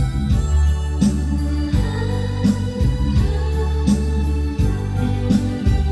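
Instrumental backing music with no singing: sustained organ-like keyboard chords over a steady bass and a regular drum beat.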